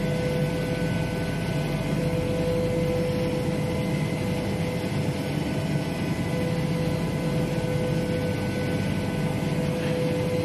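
Horizontal CNC machining centre milling an aluminium block: a steady machine hum with a steady high tone from the spindle and cut, the tone fading and returning a couple of times.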